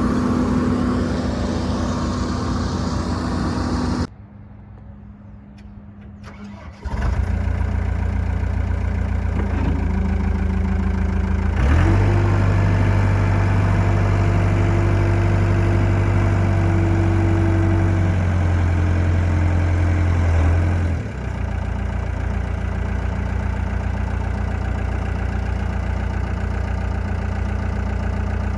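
Gehl 5635DXT skid steer's engine running, stopping about four seconds in, then starting again about three seconds later. From about twelve to twenty-one seconds it holds a louder, steady, higher-loaded drone, then drops back to a steady idle.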